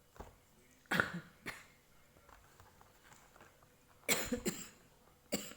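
A person coughing in short bouts: two harsh coughs about a second in, then a quick run of three coughs about four seconds in and one more near the end.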